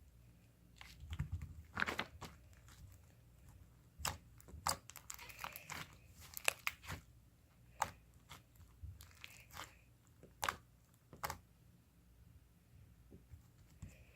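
Irregular close-up crunches and crackles, sometimes several in quick succession and sometimes spaced a second or more apart.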